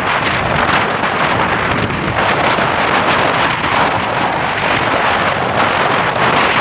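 Steady wind rush buffeting the microphone of a camera on a moving motorcycle, mixed with road noise.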